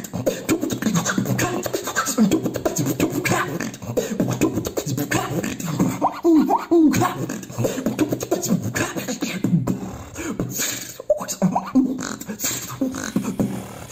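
Human beatboxing: a fast, continuous run of percussive mouth sounds (kicks, snares and clicks) with short sliding vocal tones woven in.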